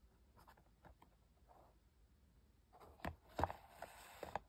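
Cardboard retail boxes being handled on a table: faint rustling and light taps, then, about three seconds in, a cluster of louder knocks and scraping as a box is moved and set down and the other picked up.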